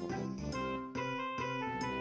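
Background music: a light tune of pitched notes over a steady beat.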